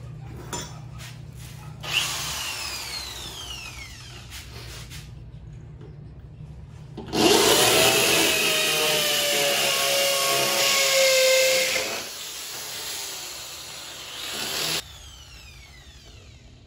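Electric drill cutting a hole: a short run about two seconds in that winds down, then a run under load for about eight seconds with a wavering pitch, then released and winding down near the end.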